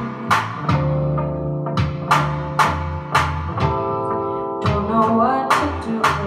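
Music: a song with singing over guitar and a steady beat of drum strikes about twice a second.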